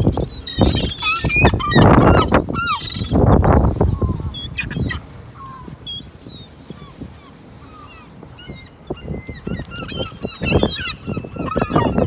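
A flock of herring gulls calling: many short, high calls that slide in pitch, overlapping in the first few seconds, thinning out midway and picking up again near the end. Loud bursts of low rumbling noise come in the first few seconds and again near the end.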